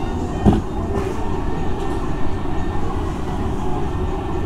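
Steady low rumbling background noise, with a single brief thump about half a second in.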